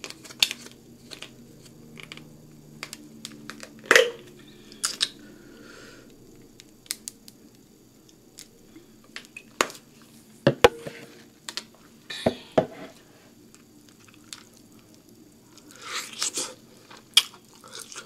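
Close-miked eating sounds from a seafood boil: scattered sharp clicks and crackles of food and crab shell being handled, with some chewing. The clicks are loudest about four seconds in, in a run around ten to twelve seconds, and in a cluster near the end.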